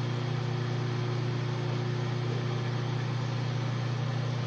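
Microwave oven running while defrosting a frozen drink: a steady low hum with an even rushing noise over it.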